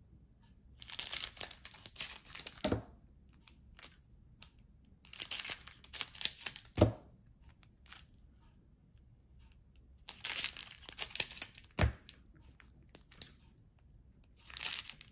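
Cellophane card-pack wrapper crinkling and rustling as it is handled, in four bursts of about two seconds. Each of the first three bursts ends with a short sharp knock.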